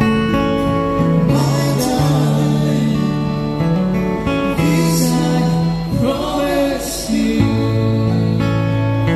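Live acoustic music: two acoustic guitars strummed and picked under a man's singing voice, amplified through stage microphones.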